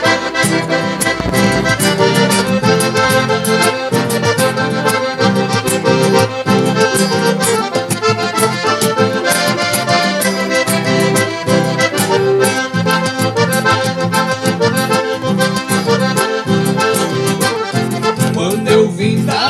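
Accordion-led instrumental passage of a traditional gaúcho song, the accordion playing the melody over a steady rhythmic bass accompaniment.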